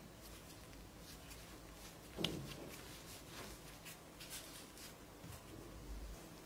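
Hands kneading and shaping bread dough on a wooden board: faint rubbing, pressing and light tapping, with one sharper knock about two seconds in.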